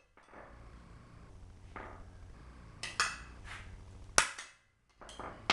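A hammer striking a steel bracket and pin of a power disconnect switch about six times at uneven intervals, each a sharp metallic crack with a short ring; the loudest blow lands about four seconds in. It is an attempt to drive out a seized pin by brute force, without a punch.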